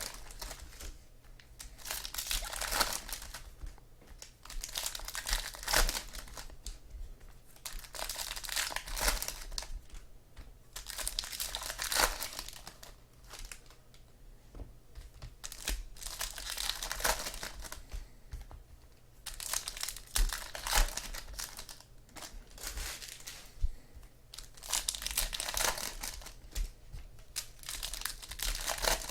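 Trading-card pack wrappers being torn open and crinkled by hand, in irregular bursts of crackling every few seconds.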